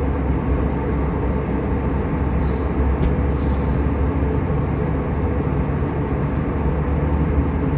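Steady cabin noise of an Airbus A320 in flight: an even, deep rush of airflow and engines.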